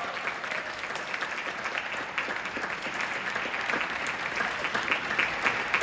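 A small audience applauding, with many separate hand claps heard through the steady clapping.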